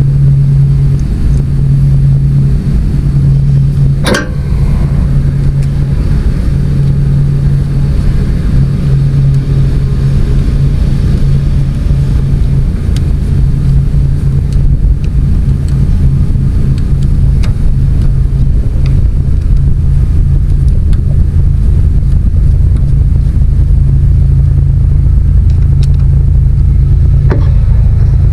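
A motor or engine running steadily with a low hum, and a single sharp knock about four seconds in.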